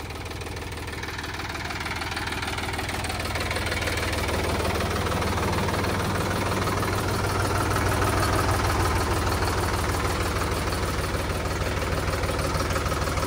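Tractor diesel engine running steadily, growing louder over the first several seconds and then holding level.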